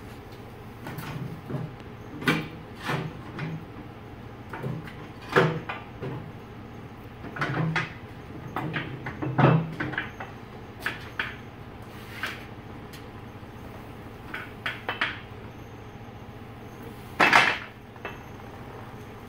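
Irregular clanks and knocks of a metal hand truck and stacked test weights against a steel floor scale platform as the weights are loaded onto the truck and wheeled off. The loudest clatter comes near the end.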